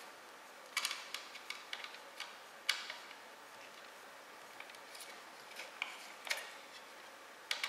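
Scattered light clicks and ticks, about eight at irregular intervals with the sharpest near three seconds in: a hex key working a bed-levelling screw and a paper feeler card sliding under the nozzle of a 3D printer.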